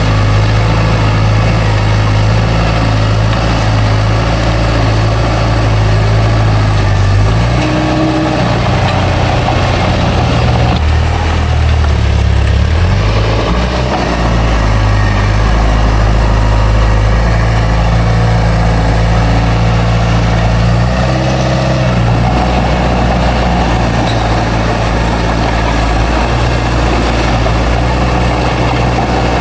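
Bulldozer's heavy diesel engine running steadily, its note dipping and shifting a few times: about a quarter of the way in, through the middle, and again about two-thirds in.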